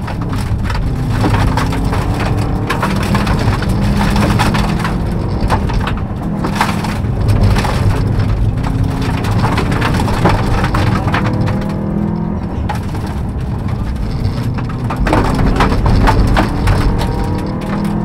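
Subaru Impreza rally car's turbocharged flat-four engine pulling hard, its note rising and dropping back again and again through gear changes, heard from inside the cabin. Gravel and stones crackle and clatter continuously against the underbody and wheel arches.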